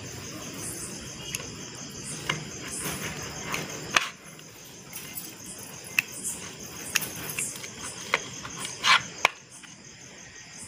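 Slices of pizza handled on a plate: a few sharp clicks and taps of fingers and utensil against the plate, over a steady, high, pulsing chirring in the background.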